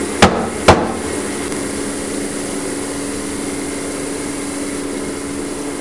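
Two sharp knocks, about half a second apart, as a film developing tank is tapped down on the counter to dislodge air bubbles from the film on the reels, then a steady background hum.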